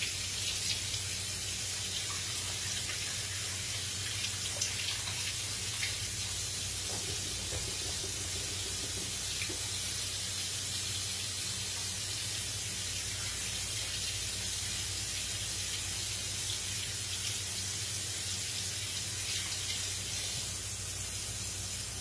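Kitchen sink faucet running steadily while hands are washed under it, an even rush of water over a low steady hum.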